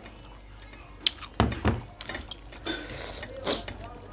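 Eating and plate-handling noises: a few sharp clicks and taps, with one dull thump about a second and a half in.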